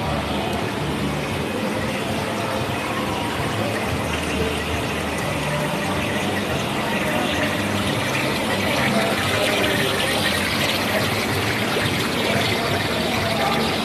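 Water running and splashing through live seafood tanks and the trough beneath them, a steady rushing hiss that grows brighter about halfway through, over a constant background din.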